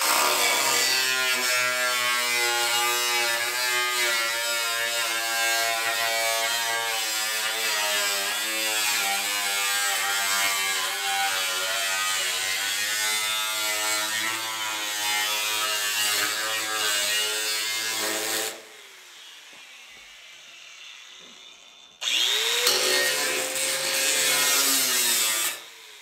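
Electric angle grinder with a cut-off wheel cutting through rusty car-fender sheet steel, its motor whine steady for about 18 seconds before it is switched off and spins down. It is started again a few seconds later, spins up, runs for about three seconds and winds down again near the end.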